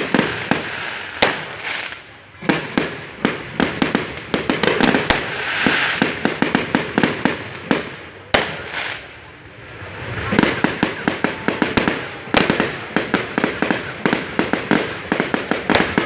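Aerial fireworks going off in rapid volleys: many sharp bangs and crackles, densest a few seconds in and again from about ten seconds in, with a short lull between.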